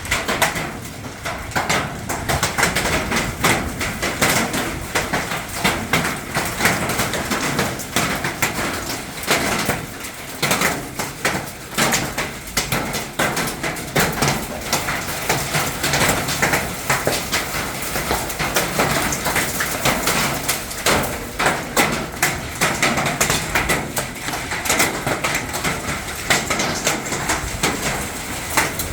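Hailstones pelting hard surfaces: a dense, continuous clatter of small, irregular impacts.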